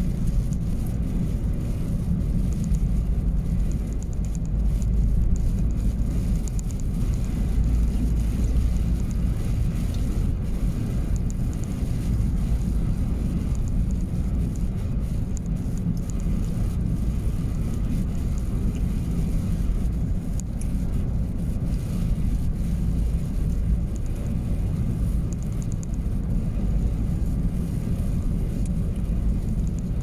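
Steady low rumble of a vehicle being driven, heard inside the cab: engine and tyre noise on a snow-covered road.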